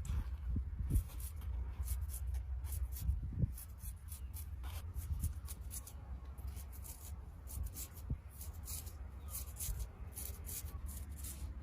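Scissors snipping through hair in quick, irregular short cuts over a low steady hum.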